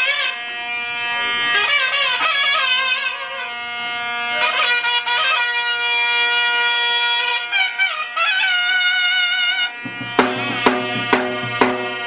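Zurna (Turkish double-reed shawm) playing a loud, heavily ornamented melody with trills and pitch bends over a steady held drone. Near the end, four drum beats about half a second apart.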